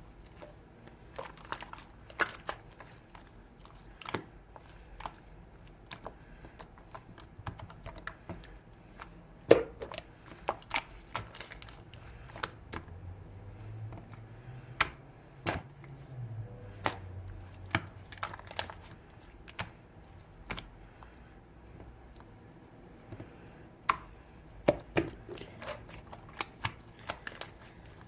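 Slime being squeezed and pressed by hand, making irregular sharp clicks and pops.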